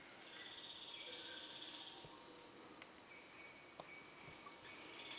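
Forest insects calling: a steady high-pitched insect drone throughout, joined by a lower pulsing insect trill that stops about two seconds in. A few faint clicks sound over it.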